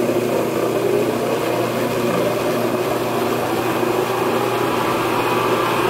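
Day laboratory double sigma-arm jacketed mixer running under power on its variable-speed drive: a steady hum from the motor and gear drive turning the mixing blades.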